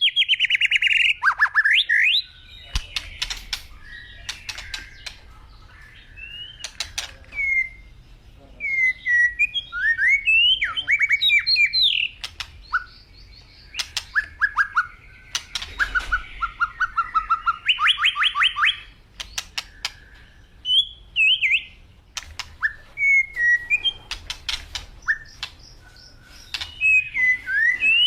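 Several birds chirping and calling: quick rising and falling whistled notes, fast rattling trills near the start, about two-thirds of the way through and at the very end, and sharp clicks scattered throughout.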